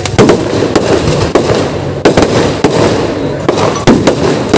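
Fireworks display: a dense run of firecracker bangs and crackling, with louder booms about every two seconds.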